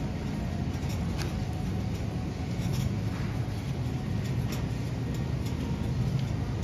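Loaded shopping cart rolling over a polished concrete floor: a steady low rumble from the wheels, with a few light clicks and rattles now and then.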